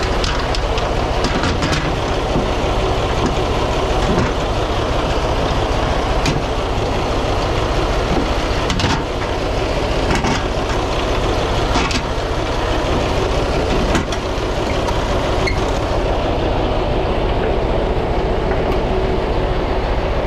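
Diesel truck engine running steadily, with occasional sharp knocks and clanks over it.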